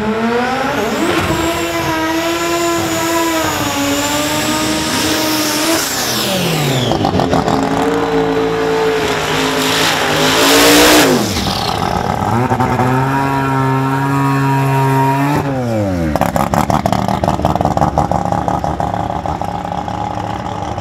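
Twin-turbo Camaro drag car doing a burnout: the engine is held at high revs with the rear tyres spinning and the pitch drops about six seconds in. There is a loud hiss of tyre spin around ten seconds in, then another high-rev hold, and about fifteen seconds in the revs fall away and the engine settles to a lumpy, pulsing idle.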